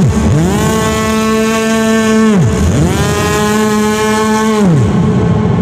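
Engine-like sound effect: a buzzy drone with many overtones that rises in pitch, holds steady for about two seconds, then drops away, three times in a row.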